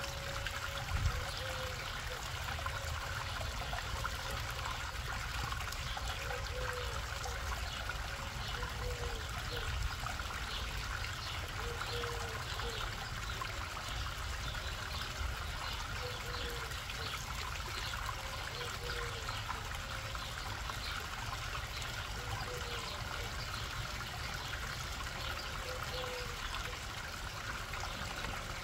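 Water trickling and splashing steadily down a rock waterfall into a garden pond, with short pitched blips every second or two.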